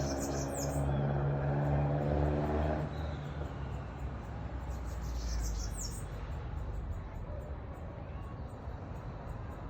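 A motor vehicle engine runs as a steady low hum and drops away about three seconds in, leaving a low background rumble. Short high bird chirps come twice: about half a second in and again about five seconds in.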